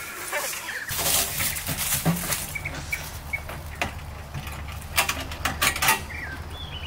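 Small hand shovels digging into dirt and leaf litter: about half a dozen sharp scraping strokes. Birds chirp a few times between the strokes.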